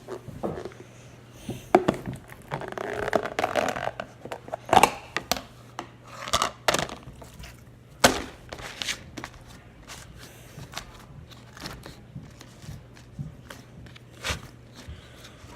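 Handling noises as slime is put into a plastic container: scattered knocks and clicks, with a stretch of crinkling and scraping about three seconds in.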